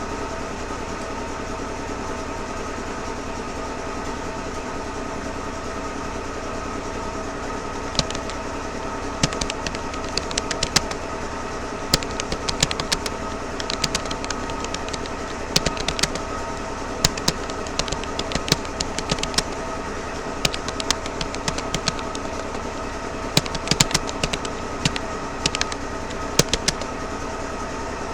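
Keystrokes on a Rapoo computer keyboard: sharp, irregular clicks, sparse at first and coming thick and fast from about eight seconds in, over a steady droning hum.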